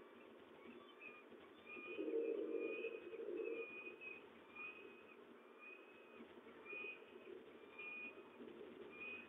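Peregrine falcon wailing faintly: a run of short, thin, high calls, roughly one a second. About two seconds in, a louder, lower sound lasts for about a second and a half.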